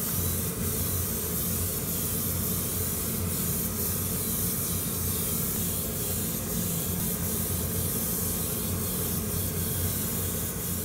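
Gravity-feed airbrush spraying semi-gloss clear coat: a steady hiss of air and paint mist, over a steady low hum.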